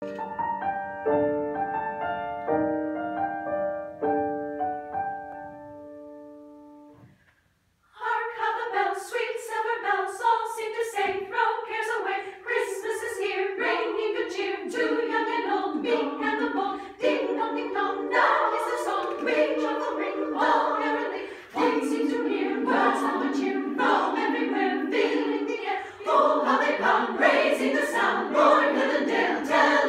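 A few seconds of held piano chords that fade away, then after a short pause a women's vocal ensemble sings a carol together in harmony.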